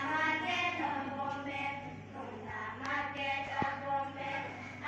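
A song sung by several voices together in chorus.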